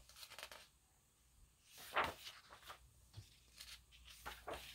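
Pages of a large hardcover book being turned by hand: a few faint paper rustles and flaps, the loudest about two seconds in.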